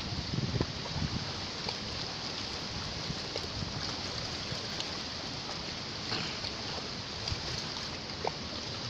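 Steady rushing of flowing water, with a few faint ticks.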